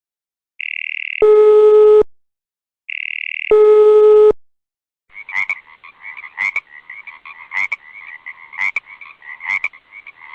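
A telephone sound effect plays twice, each time a brief high trilling ring followed by a loud, steady buzzing tone. Then frogs croak in a rapid, uneven series of calls for about five seconds.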